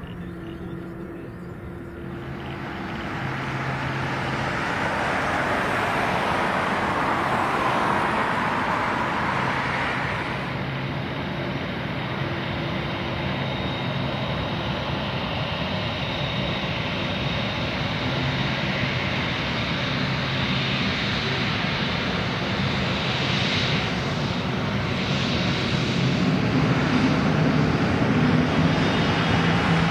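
Jet airliner engines: an Airbus A350 climbing away at take-off thrust, its noise swelling over the first few seconds. About ten seconds in it gives way to the steadier running of a Boeing 747's engines taxiing, with a thin high whine.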